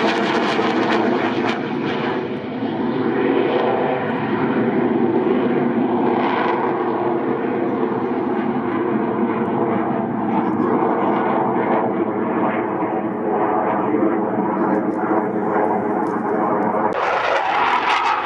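Military jet aircraft flying overhead: loud, steady engine noise with a high whine. The sound changes abruptly near the end and turns harsher.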